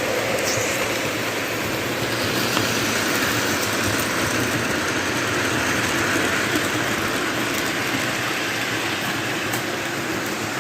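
O gauge toy train running along its track, a steady rolling rumble of wheels and motor with a few faint clicks.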